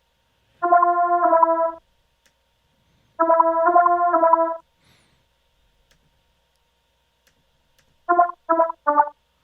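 Square-wave synth lead made in Harmor, a resonant sound-design patch, playing back a pattern: two held phrases of about a second each, then a run of short staccato notes near the end.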